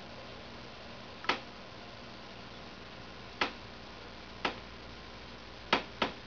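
Sparse, irregular sharp ticks, five in about six seconds, over a faint steady hiss: wintry precipitation striking a hard surface close by.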